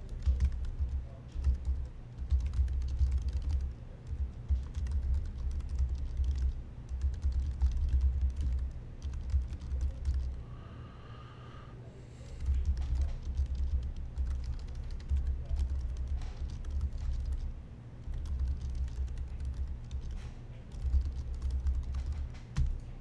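Typing on a computer keyboard in quick bursts of keystrokes, with a short pause about ten seconds in.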